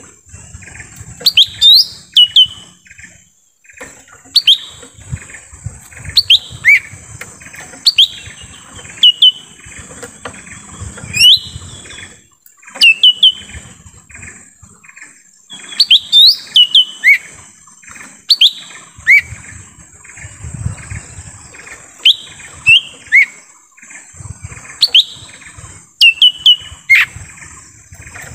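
Lesser green leafbird (cucak ijo mini) calling: loud, sharp whistled notes that sweep quickly in pitch, often two or three in quick succession, repeated every second or two. A steady high-pitched drone runs underneath.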